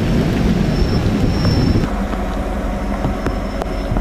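Low rumble of vehicles moving slowly at close range, mixed with wind buffeting the microphone. The heavy low rumble drops away abruptly about two seconds in, leaving a quieter steady background hum with a few faint clicks.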